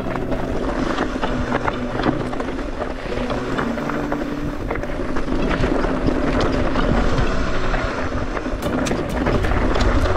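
Electric mountain bike ridden over rough trail: tyre and ride noise with many small knocks and rattles, and wind buffeting the action-camera microphone.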